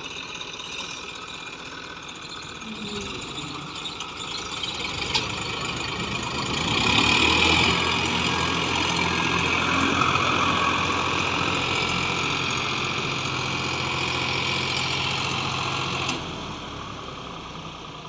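Farmtrac 60 diesel tractor engine working under load as it hauls a trolley heaped with sugarcane. The engine grows louder about six seconds in, holds steady, and drops off suddenly near the end.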